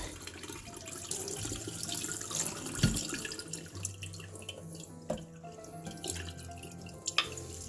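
Wet, gritty scraping of a sharpening stone being rubbed back and forth on a wet diamond lapping plate to flatten it, with a few sharp clicks of stone on plate.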